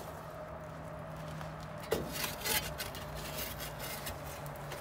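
Long-handled shovel scraping ash and coals in a wood boiler's firebox: a sharp scrape about two seconds in, then a few shorter scrapes, over a steady low hum.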